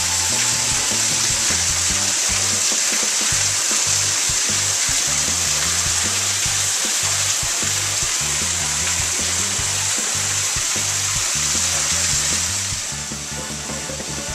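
Background music with low notes changing in steps, under a loud steady hiss that eases off near the end.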